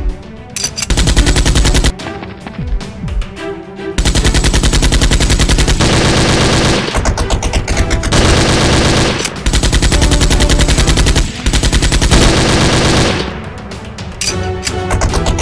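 Rapid automatic-gunfire sound effects in long bursts, a short burst about a second in and then near-continuous fire with brief breaks, over background music.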